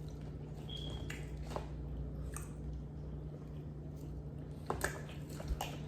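A person chewing a mouthful of fried chicken nuggets, with a few short crunches, several together near the end.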